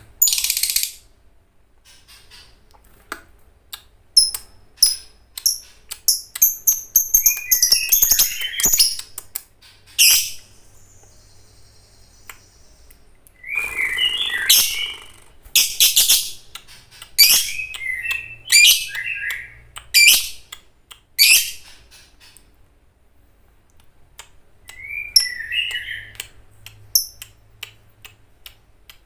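Lovebird singing in bursts of shrill, rapid chirps and squeaky warbled phrases, broken by short pauses.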